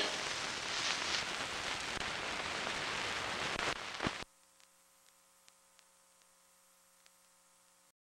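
Hiss and crackle of an old optical film soundtrack running on after the music, cutting off abruptly about four seconds in; after that only a faint hum with a few small ticks.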